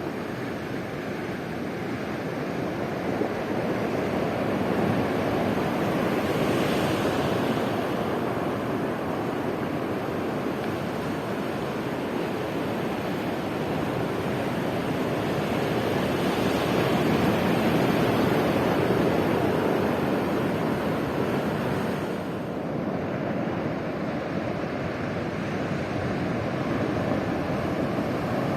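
Atlantic surf washing ashore in a steady rush that swells louder twice, as bigger sets of waves come in.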